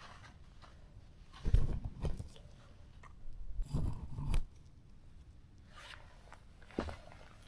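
Rustling and crunching in forest-floor litter, in three short bursts with quiet between them.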